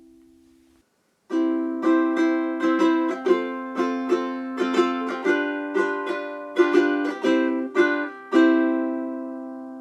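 Seilen SLTS-830GS tenor ukulele, with Brazilian rosewood back and sides and a German spruce top, being played. A ringing chord fades away. After a short pause a phrase of plucked notes and chords follows, about two or three a second, and it ends on a chord left to ring out.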